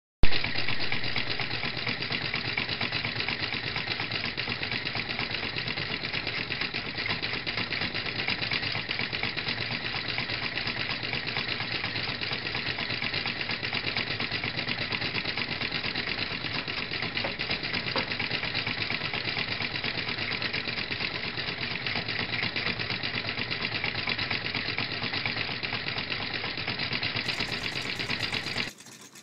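Homemade dual-chamber drink-can Stirling engine running with a fast, steady mechanical clatter. It starts abruptly and cuts off near the end.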